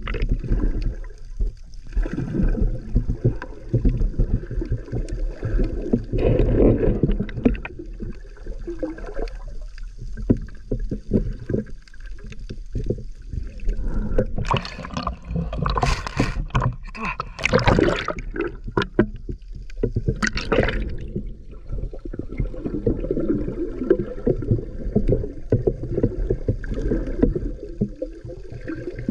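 Water sloshing and gurgling around a camera held underwater by a swimming snorkeler, a steady low churning full of small irregular knocks. A run of louder, sharper bursts of water noise comes about halfway through and dies away again.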